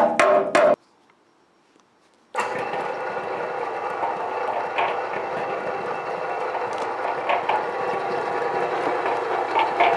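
A few quick hammer taps on the brazed cast-iron ring gear, then a short silence. From about two and a half seconds in, the old belt-driven cement mixer runs steadily, its drum turning on the repaired ring gear, with a mechanical hum and the odd light click from the gearing.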